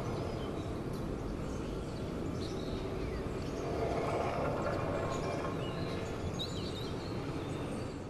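The viral "strange sounds" hoax groan, a low, drawn-out, trumpet-like moaning note, mixed in faint as if coming from far off. It swells about four seconds in, with short high chirps over it.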